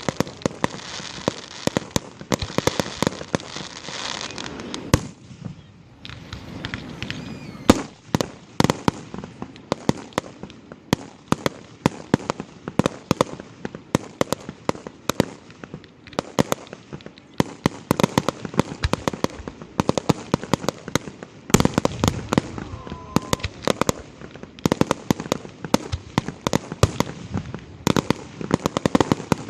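Fireworks display: a rapid stream of sharp bangs and crackling, densest in the first five seconds, thinning briefly, then going on with many separate bangs and pops.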